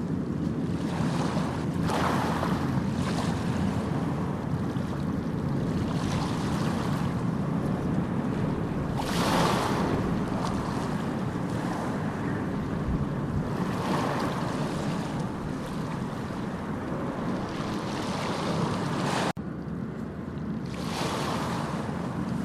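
Ocean waves washing in and out, a hissing swell of surf every few seconds over a steady low rumble. There is a brief sudden dropout about two thirds of the way in.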